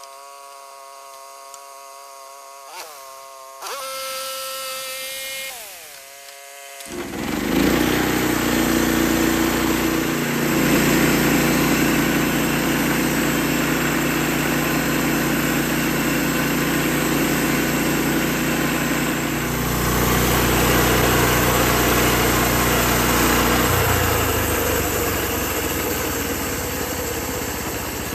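Norwood LM30 portable band sawmill: its engine runs with a steady hum, then about seven seconds in it speeds up and the band blade cuts through the log, a loud steady sawing over the engine until the end.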